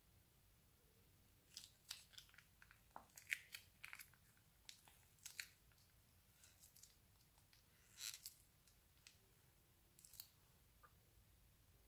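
Crunchy slime and plastic piping bags being handled: irregular crisp crackles and snaps, one cluster a little longer about eight seconds in, with quiet between.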